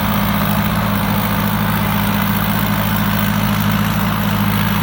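Thai Seng Super Jiw 6-ton combine harvester's four-cylinder turbo diesel running steadily as it harvests, a constant low engine hum with no change in pitch.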